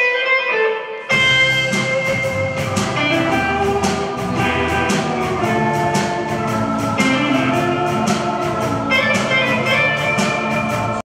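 Live rock band: an electric guitar holds ringing notes alone, then the drums and the rest of the band come in together about a second in and play on.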